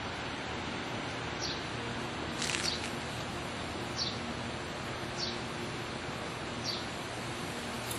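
A bird calling over and over with short, high, downward chirps about every second and a half, over a steady outdoor hiss.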